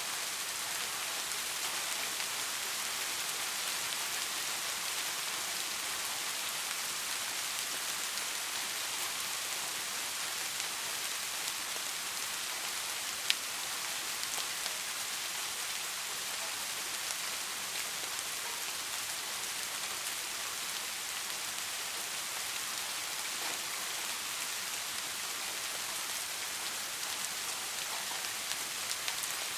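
Steady, moderate rain falling and pattering on surfaces, an even hiss. A single sharp drop strikes close by about halfway through.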